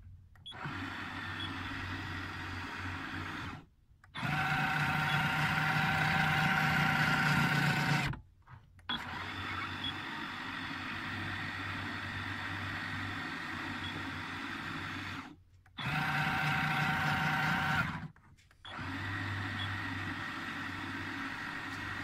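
Raymarine tillerpilot's electric motor and gearbox driving the pushrod in several runs with short pauses between them. Two of the runs are louder and carry a whining grind. A grinding noise on the outstroke is the symptom of bearing endfloat: the plastic disc that holds the bearing in has been destroyed, letting the bearing and shafts float.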